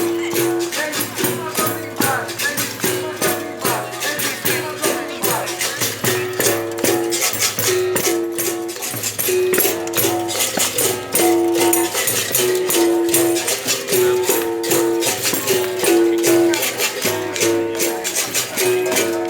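Berimbau played with a caxixi basket rattle: a repeating capoeira rhythm that alternates between two twanging notes, the higher one made by pressing the stone against the wire, over a steady fast shaking of the caxixi.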